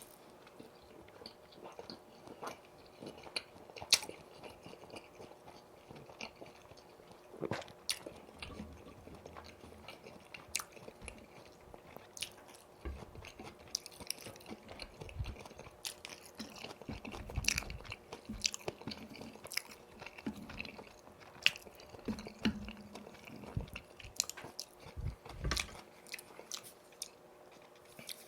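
Close-miked chewing and biting of boneless fried chicken in yurinki sauce, with irregular crunches and wet mouth clicks.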